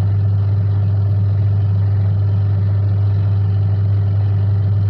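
Washing machine wash motor running, a steady low electric hum as it turns the drum's pulsator to the right during a test run after a repair for only turning one way.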